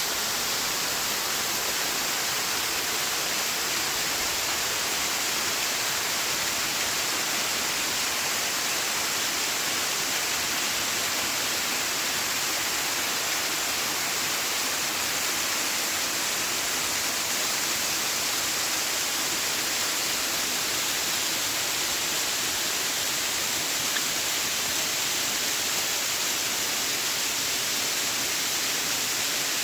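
Water cascading down a rainforest creek: a steady, unbroken rush with an even, hissy tone.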